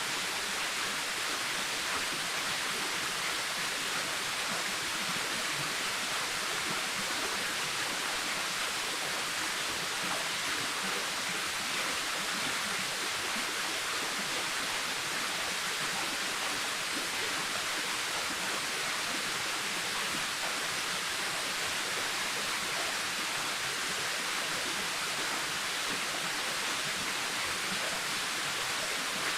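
Waterfall cascading steadily: a constant rush of falling water, heavy in hiss and light in bass.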